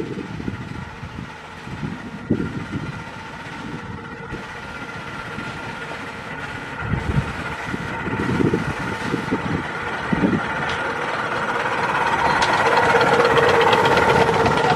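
Ride-on miniature railway locomotive hauling passenger carriages, approaching and passing close by: a steady engine hum at several pitches that grows louder as it nears.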